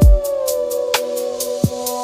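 Mellow electronic deep-house music: a soft kick at the start, then sustained synth pad tones, one of which glides down in pitch, over light clicking percussion, with the deep bass dropped out.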